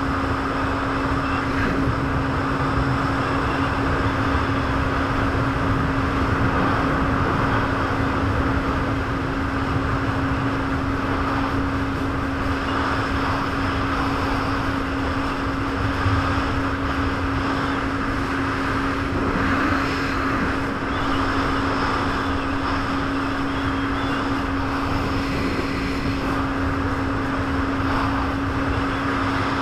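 Jet ski engine running at a steady speed, a constant hum under a broad rush of wind and water noise.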